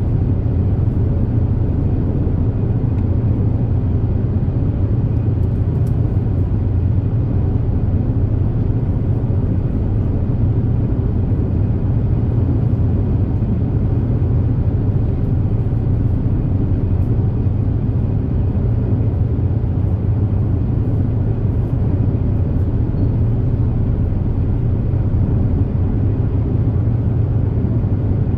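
Super Jet high-speed ferry under way: a steady, unbroken drone of its engines and water jets, with a deep hum and a rushing noise of hull and water, unchanging throughout.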